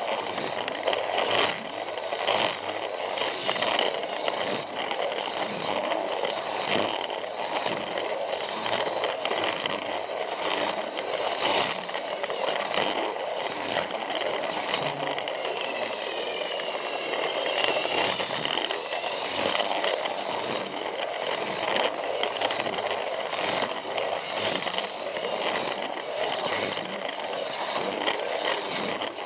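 Battery-powered Plarail toy train running on plastic track, heard from on board: a steady whirring motor and gearbox with the wheels scraping and clicking over the track joints.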